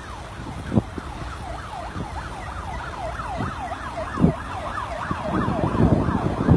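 A siren wailing in quick rising-and-falling sweeps, about three a second, with a couple of dull thumps and low rumble underneath toward the end.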